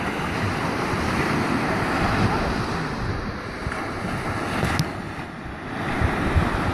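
Small ocean surf waves breaking and washing up the beach, with wind buffeting the microphone. The wash eases briefly about five seconds in, then swells again as a wave breaks near the end.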